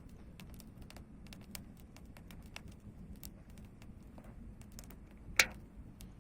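Campfire crackling, with irregular sharp pops and ticks and one louder pop about five seconds in.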